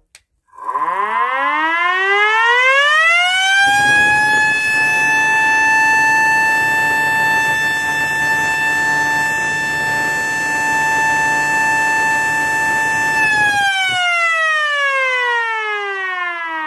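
Factory-new 24 V S0 siren (new design) on test alarm: it winds up over about three seconds to a steady high wail and holds it for about ten seconds. It then winds down, its pitch falling steadily. A rushing noise sounds beneath the tone while it holds.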